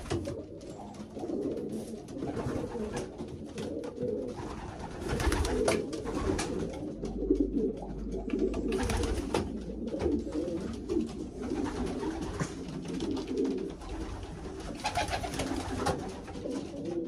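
Racing pigeons cooing without a break, several voices overlapping, with a few short knocks among them.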